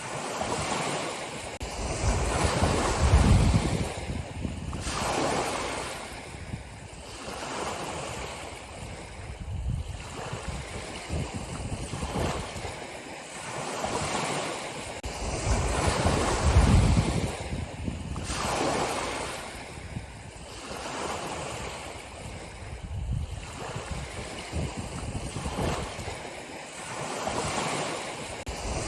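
Ocean waves breaking and washing back, one surge every few seconds, two of them much louder than the rest.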